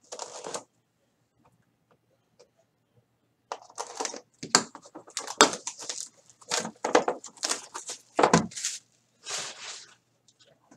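Plastic shrink wrap being crinkled and torn off a box of trading cards: a brief rustle at the start, then a long run of irregular crackling and tearing from about three and a half seconds in.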